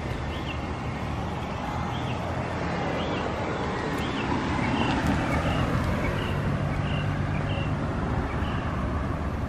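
Road traffic on the street beside the sidewalk: a car's low rumble swells and passes through the middle. A short, high chirp repeats about once a second over it.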